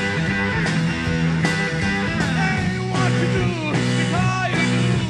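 A rock band playing live: electric bass and drum kit keep a steady beat, with notes sliding up and down over the top.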